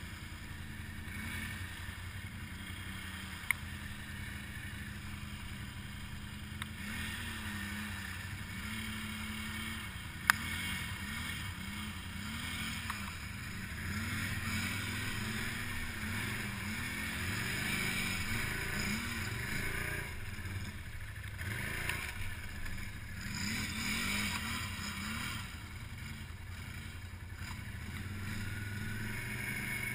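ATV engine idling steadily, then blipped up and down again and again as the quad creeps through deep mud and puddles, its pitch rising and falling with each burst of throttle. A couple of sharp knocks, one a few seconds in and one about ten seconds in.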